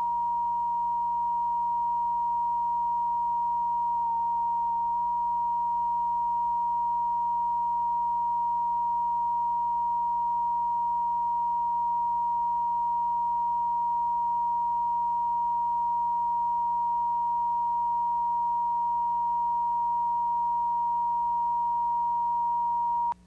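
Broadcast line-up test tone: one steady pure pitch over a faint hum, with a slight waver about four seconds in, cutting off suddenly near the end.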